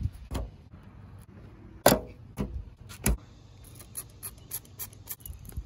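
A trigger spray bottle squirted in several short bursts at a car's trunk lid, with the trigger clicking and hands handling the bottle; the two loudest squirts come about two and three seconds in, followed by a run of smaller clicks.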